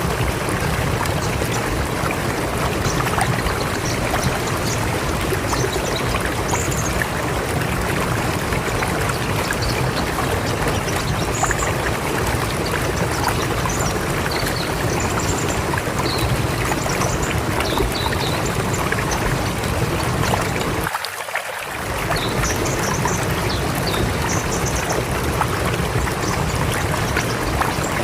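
River water flowing and rushing steadily, with short faint high-pitched chirps scattered over it. About 21 seconds in, the low rumble drops out for under a second.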